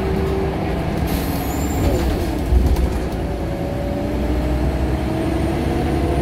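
Scania L94UB single-deck bus heard from inside the saloon while under way: steady engine and road rumble. A short hiss comes about a second in. The engine note drops just before two seconds, as at a gear change, then climbs steadily as the bus picks up speed.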